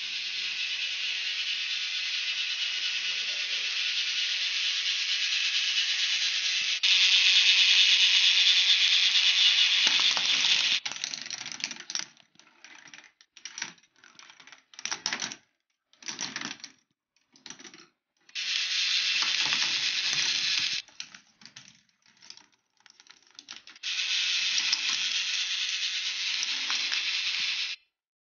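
K'nex ball machine running: plastic balls rattling along plastic tracks and lifts in a dense, steady clatter. It is loudest from about a quarter of the way in, then cuts in and out abruptly several times before running steadily again.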